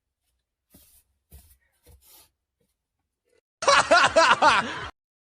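A short burst of laughter, loud and pulsed, starting about three and a half seconds in and lasting just over a second. Only faint small noises come before it.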